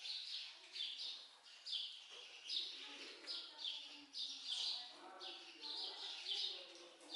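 Small birds chirping over and over, short high chirps coming about twice a second.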